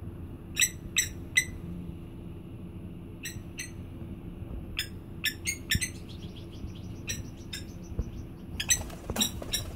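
Blacksmith plovers (blacksmith lapwings) calling with their clinking 'tink' notes, the anvil-like call that gives the species its name. The notes are short and sharp and come in small groups: three about half a second in, two around three seconds, a cluster around five seconds, and a quicker flurry near the end.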